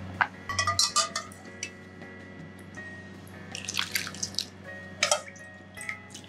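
Peeled cherry tomatoes set into a plastic food container with a few light taps, then sweet vinegar poured over them in a thin stream, splashing and dripping. Soft background music underneath.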